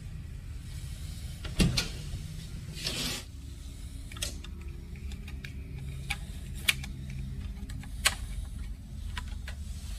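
Hotel room door with an electronic keycard lock: a sharp click as the lock releases about one and a half seconds in, then a short rush of noise as the door swings open. Scattered lighter clicks and knocks follow over a steady low hum.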